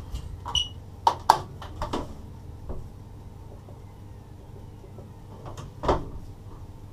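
A few sharp clicks and knocks with a short squeak in the first two seconds, then one louder knock about six seconds in, inside a moving locomotive's cab over the steady low rumble of the running train.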